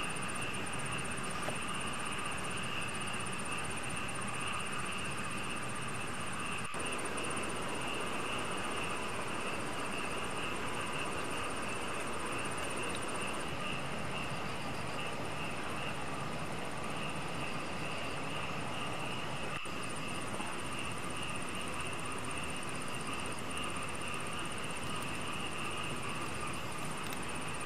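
Steady chorus of night insects, an unchanging drone with several high shrill bands.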